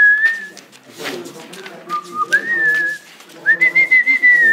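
A person whistling a tune in several held notes that step up and down in pitch, the longest phrase near the end. Faint talk sits underneath.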